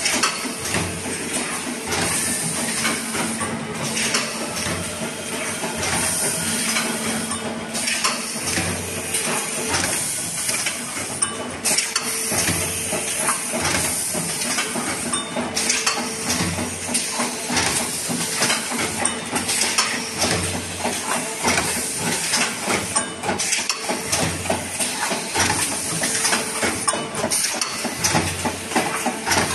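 A row of JBZ-500E hydraulic paper plate machines running in production: dense rapid clicking and metallic clatter over a steady hiss, with a low thud every couple of seconds as the presses cycle.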